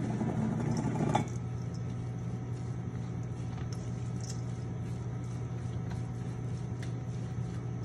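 Rubber spatula folding a wet bean-and-vegetable mixture in a stainless steel bowl: soft scraping, denser in the first second, with light clinks against the bowl. A steady low hum runs underneath.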